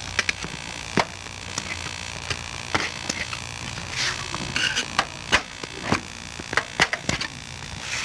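Screwdriver prying a bicycle tyre off its metal rim: irregular clicks and knocks, about eight scattered through, over a steady hum and tape hiss.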